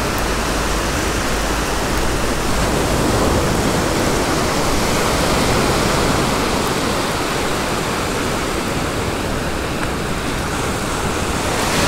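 Steady, even wash of surf breaking on a sandy beach, mixed with wind noise.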